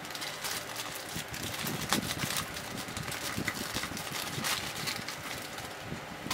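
Plastic courier mailer being torn open and crumpled by hand, and a bubble-wrapped box pulled out: a continuous irregular crackling and rustling of plastic.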